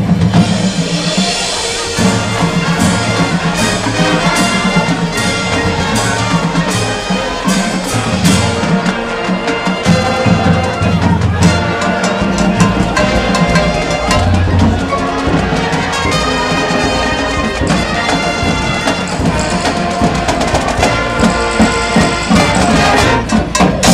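High school marching band playing: brass section and drumline together, with held brass chords over a steady drum beat.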